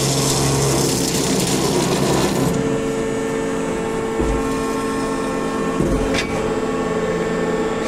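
Kaltenbach KKS 450 H semi-automatic band saw running with a steady machine hum. A high hiss over the first two and a half seconds then drops away, and there is a short knock about six seconds in.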